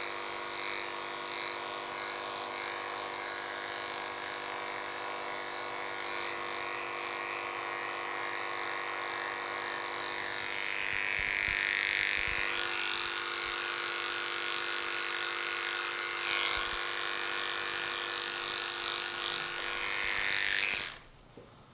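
Electric dog grooming clippers running in a steady buzz, brightening now and then as the blade works through the coat. They cut off suddenly about a second before the end.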